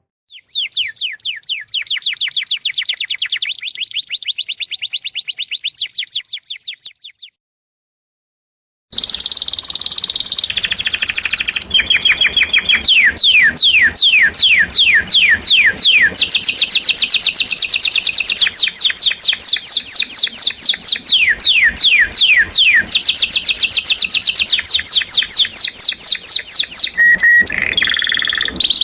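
Bird calls: fast runs of high chirps, each sliding downward in pitch. They break off about seven seconds in, stop for a moment, then return louder and more tightly packed.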